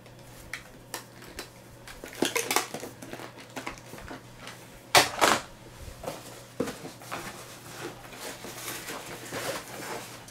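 Handling noise as gear and a small tin are packed into a nylon backpack: scattered clicks and rustling, with one louder scrape of about half a second roughly five seconds in. A low steady hum sits underneath.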